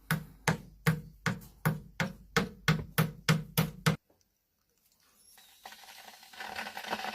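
Parrot mimicking the cough of a person with lung disease: a fast, even run of short coughs, about three a second, that cuts off abruptly about four seconds in.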